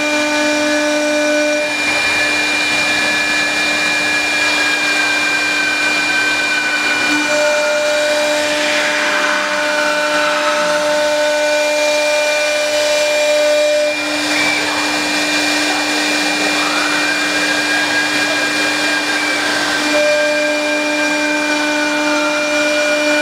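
CNC wood lathe running as it turns a wooden stair leg: a steady machine whine with a hiss of the cutter taking off shavings. A higher whine slowly falls in pitch about a third of the way in and rises again later, while other steady tones drop out and come back.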